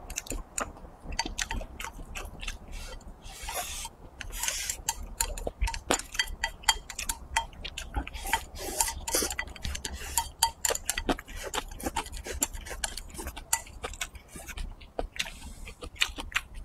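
Wooden chopsticks clicking and scraping against a ceramic bowl in many quick taps as rice is shovelled from the bowl into the mouth, with chewing.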